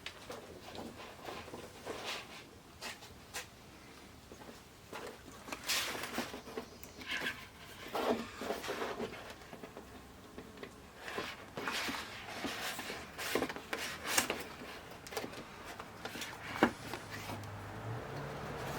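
Irregular clicks, taps and rustling scrapes from hands handling and fitting the plastic inner parts of an LCD TV during a backlight repair.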